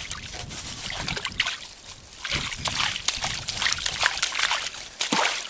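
River water splashing and sloshing in irregular splashes as a man standing waist-deep works with his hands at the end of a plastic siphon pipe, wrapping it in a plastic bag.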